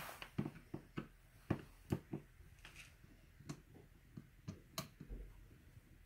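Light, irregular clicks and taps of small plastic water-softener valve parts, the injector parts of a Fleck 5600 control valve, being handled and fitted by hand.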